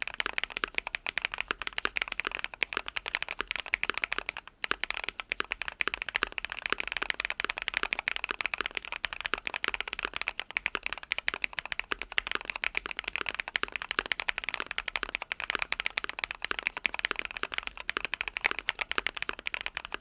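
Fast continuous typing on a Keychron Q1 mechanical keyboard fitted with Tecsee Carrot 67 g linear switches, lubed with Tribosys 3203 and left unfilmed. It is a dense stream of keystrokes with a brief pause about four and a half seconds in.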